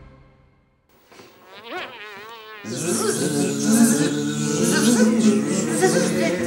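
Flies buzzing: a single warbling buzz rises in about a second and a half in, then a dense, steady buzz of many overlapping pitches sets in just before three seconds in and holds.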